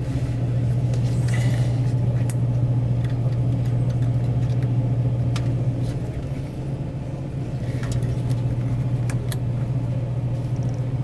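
A steady low hum runs throughout, with a few small clicks and light metallic rattles of wires being handled and pushed onto a vending machine door switch.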